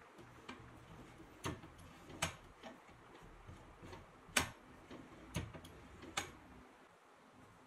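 About eight sharp metal clicks and clinks at irregular intervals from the feed handles and hub of a restored 1937 Delta drill press being handled, the loudest a little past the middle.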